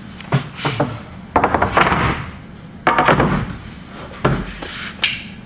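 Two long wooden boards being set down on a wooden workbench and shifted into place: several knocks of wood on wood, with the boards scraping as they slide across the bench top.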